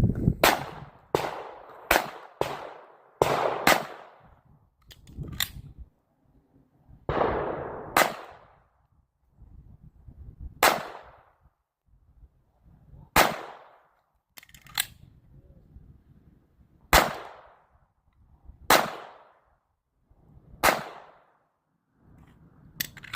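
Repeated gunshots, each with a short echoing tail: a quick string of shots in the first few seconds, then single shots about every two seconds, around fifteen in all.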